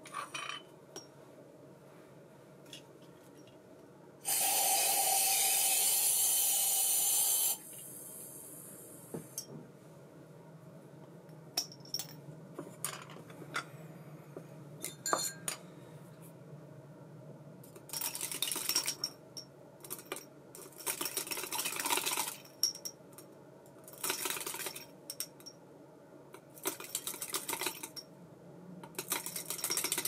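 ABU Ambassadeur 2500C baitcasting reel with a Brimo spool on bearings, tuned to run with as little oil and drag as possible. The spool spins freely with a steady whirr for about three seconds, then is stopped, and a fainter whir fades out. After that come light metallic clicks and several short bursts of whirring and clicking as the reel is worked by hand.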